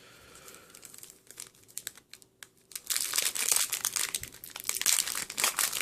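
Foil wrapper of a Yu-Gi-Oh! Abyss Rising booster pack crinkling and being torn open, after a few quiet seconds of light handling clicks.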